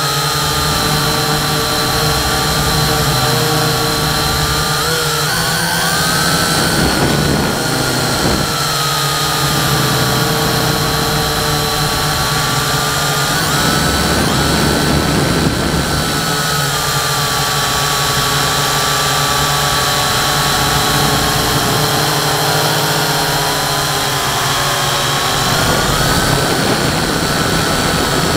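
Quadcopter drone's electric motors and propellers whining steadily in flight, heard close up from the drone's own onboard camera. The pitch drifts gently up and down as it manoeuvres.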